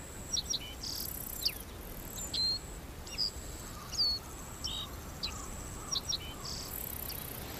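Forest birds calling with repeated short chirps and downward-sliding whistles over a steady high-pitched insect drone.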